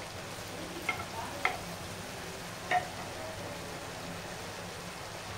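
Faint steady sizzle of sweet rice cooking in sugar syrup in a pan, with three light taps in the first three seconds as roasted cashews and almonds are dropped in.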